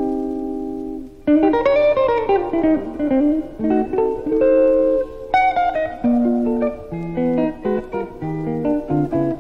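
Jazz guitar playing: a held chord fades away, then about a second in a quick run of single notes gives way to chords and melody notes.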